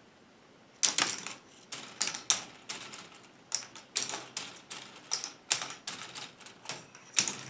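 K'NEX ball machine being tested: plastic balls clattering down the track and through a set of four pivoting linked arms. It is an irregular run of sharp plastic clacks, about three a second, starting about a second in.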